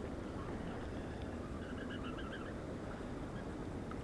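Steady low rumble of wind and handling noise on a body-worn camera's microphone, with a quick run of about six high chirps a little after the middle.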